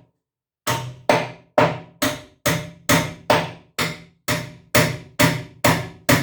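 Steady hammering on the copper tank: about a dozen sharp metal-on-metal strikes, roughly two a second, each ringing briefly. The strikes begin after a short pause.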